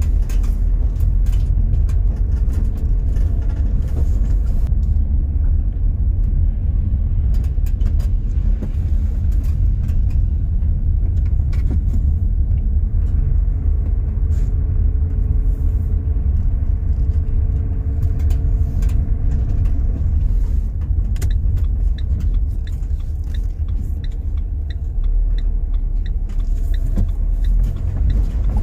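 Car cabin noise while driving slowly: a steady low rumble of the engine and tyres on the road, heard from inside the car. Faint light ticks sound now and then, with a short run of regular ticking in the second half.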